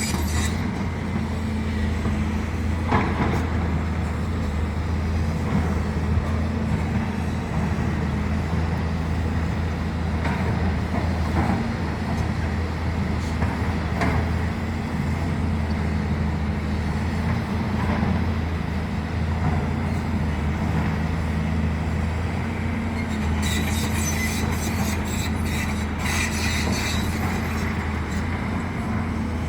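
Large excavator's diesel engine running steadily with a low drone, with a few short knocks and a few seconds of higher rattling about three-quarters of the way through.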